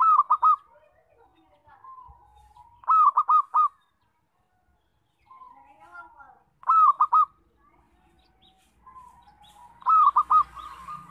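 Zebra dove (perkutut) singing: four loud phrases, each of three quick hooked notes, about three seconds apart, with softer cooing notes between them.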